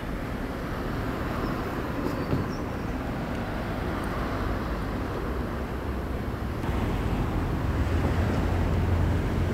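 Steady outdoor background noise: a low rumble with a hiss above it, the rumble growing stronger in the last few seconds.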